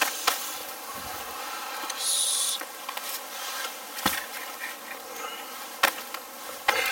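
Wood fire burning: a steady hiss with a few sharp, scattered crackles and a brief higher hiss about two seconds in.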